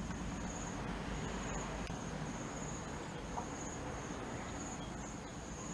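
Insects trilling: a thin, high-pitched buzz that swells in regular pulses, over faint outdoor background noise.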